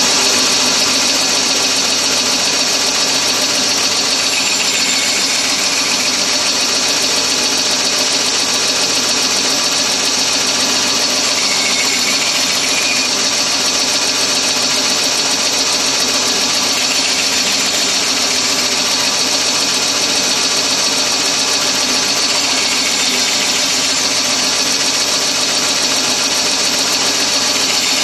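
Bandsaw running steadily with a high whine, cutting a wooden strip into angled segments on a crosscut sled.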